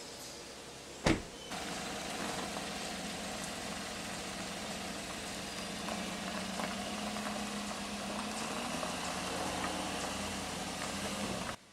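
A single sharp knock about a second in, then a vehicle engine running steadily with a low hum, stopping abruptly near the end.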